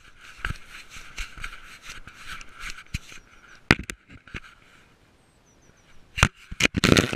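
Rustling and brushing against a GoPro worn by a cat as it moves through dry grass, then several sharp knocks and thuds as the camera jostles. The knocks are loudest and come thick and fast near the end.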